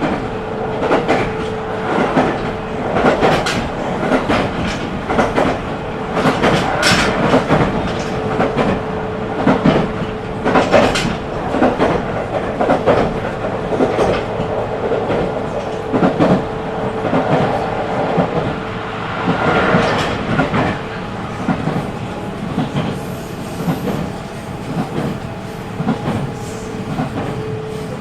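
JR Central 313 series electric train running, heard from inside the car: wheels clicking irregularly over rail joints over a steady rumble, with a steady whine from the IGBT VVVF traction equipment that fades for a few seconds near the end and then returns.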